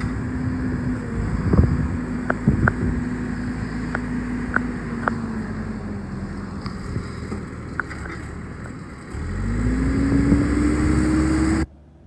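Manitou MLT634 turbo telehandler's diesel engine running steadily with a few sharp clicks, then revving up with a rising pitch about nine seconds in as the machine pulls away. The sound cuts off suddenly near the end.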